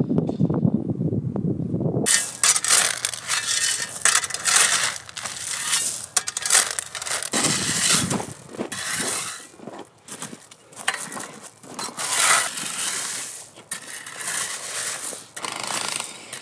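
A long-handled tool scraping and digging into crushed-rock track ballast in repeated irregular strokes, with gravel crunching and shifting. It follows about two seconds of low wind rumble at the start.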